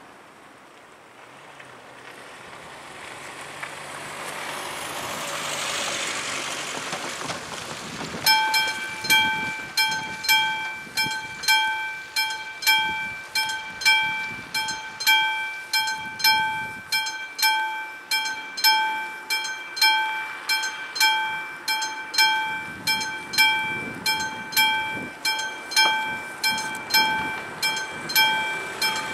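Classic level-crossing warning bell ringing at a railway crossing, warning of an approaching train. It starts about eight seconds in and strikes steadily a little faster than once a second. Before it, a broad rushing noise swells and fades.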